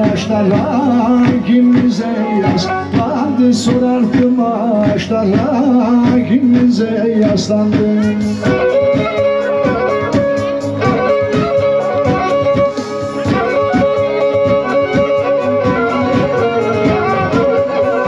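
Black Sea folk song performed live: a man sings with Karadeniz kemençe through a PA. About eight seconds in the voice drops out and the kemençe carries on alone in a fast, even rhythm.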